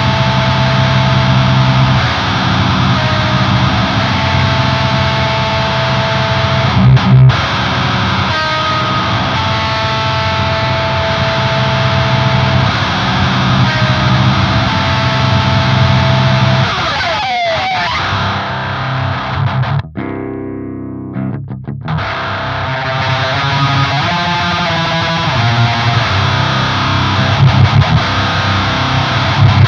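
Looped high-gain electric guitar riffs through a Lichtlaerm Audio Medusa HM-2-style distortion pedal into a Peavey 6505 amp, the tone changing as the pedal's controls are turned. A little past halfway the sound sweeps and then cuts to a darker, thinner tone for about two seconds before the full distorted tone returns.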